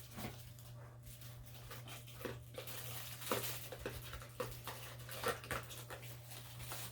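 Packaging being handled as an alarm clock's cable and power adapter are fitted back into its box: scattered small clicks, knocks and rustles, over a steady low hum.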